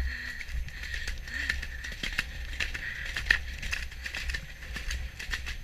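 Horse moving at speed along a muddy track, heard from the saddle: irregular hoofbeats and knocks over a steady low rumble of rushing air on the microphone.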